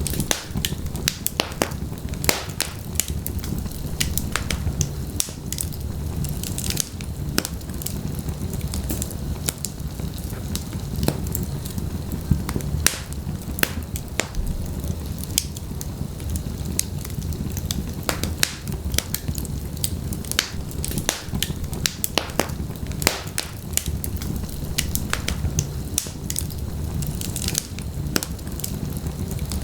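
Wood fire burning in a fireplace, with a steady low rumble of flames under frequent sharp crackles and pops that come irregularly.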